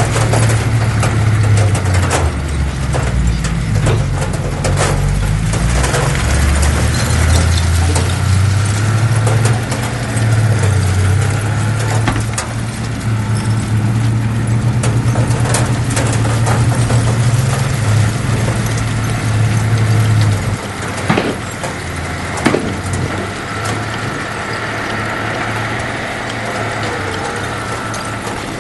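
Heavy diesel earthmoving machinery working, its engine running hard with a wavering low drone and scattered metallic knocks and clanks. About twenty seconds in the engine drone drops off, followed by a couple of sharper knocks.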